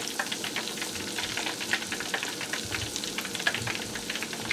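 Battered red pepper and mushroom pieces deep-frying in a pot of hot oil: a steady sizzle full of small crackling pops.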